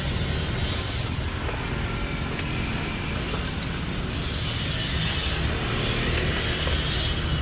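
Steady mixed noise: a low rumble of street traffic together with the hiss of banana cakes frying in a pan on a portable gas stove.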